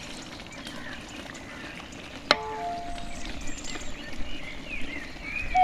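A metal cooking utensil strikes a metal pot once, about two seconds in, with a short bright ring. Birds chirp in the background.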